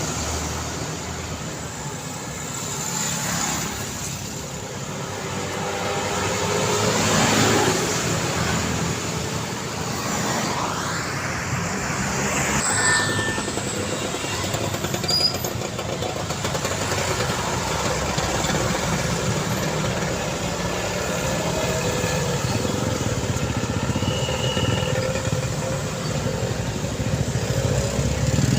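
Busy street traffic passing close by: motorcycles and cars going by one after another over a steady engine hum, with the loudest pass-bys about seven and twelve seconds in.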